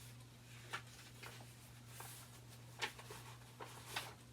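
Quiet, short paper rustles of book pages being handled and turned, five or so brief strokes spread across the pause, over a steady low hum.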